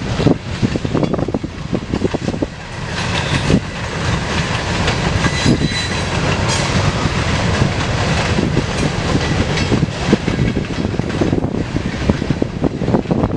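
Loaded coke hopper cars of a CSX freight train rolling past, their wheels clicking and knocking over the rail joints over a steady rumble.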